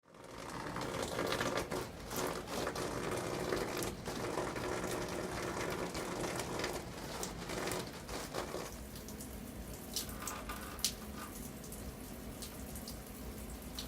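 Water pouring and splashing, easing about nine seconds in to a quieter trickle with scattered drips.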